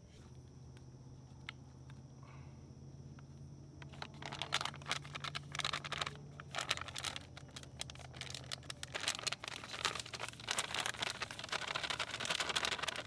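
Crinkling and rustling of a plastic fish-batter pouch being handled, starting about four seconds in and running to the end.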